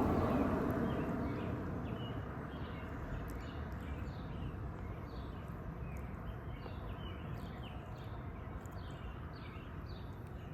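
Small birds chirping in quick, repeated short notes over a steady low outdoor rumble. A louder rushing noise at the start fades away over the first two seconds.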